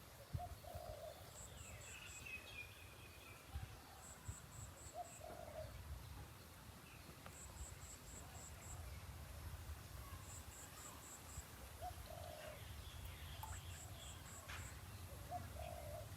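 Natural outdoor ambience: an insect chirping in short trains of four or five high pulses every two to three seconds, with a short lower call repeating every few seconds and a few faint bird calls, over a low steady rumble.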